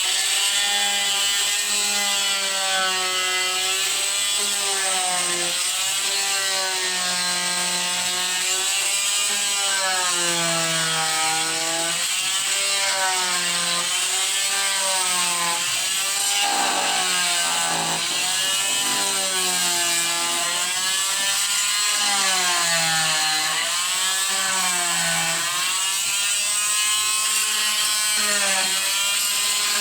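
Small handheld Hyper Tough power tool running continuously as its blade cuts wooden plugs off flush, its pitch dipping and recovering over and over as the blade bites into each plug.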